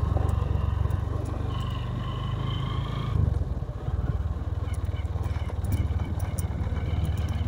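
Motorcycle engine running steadily at low riding speed on a gravel road, its note dipping and changing about three seconds in, with scattered small clicks.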